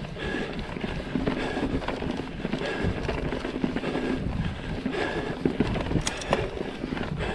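Mountain bike rolling fast along a dirt forest singletrack: a constant rumble of the tyres with frequent knocks and rattles as the bike goes over roots and stones.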